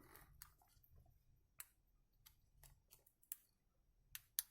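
Faint, scattered small clicks and crackles as a glued-in part is pried loose inside a smartphone, the glue slowly giving way.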